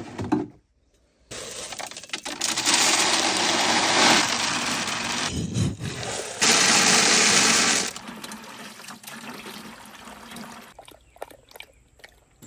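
Water running hard from a tap, surging louder twice, then shut off about eight seconds in. Light clicks and knocks follow.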